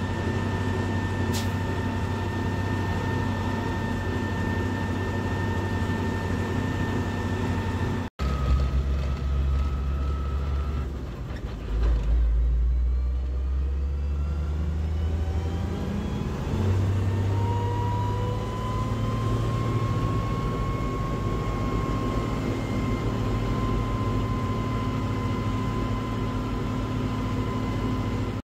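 Mercedes-Benz MB-trac 1300's six-cylinder turbo diesel running under way, heard from inside the cab, with a steady high whine over the engine drone. The sound cuts out for an instant about a third of the way in. A little later the engine note drops, then climbs again with a rising whine as the tractor picks up speed, before settling.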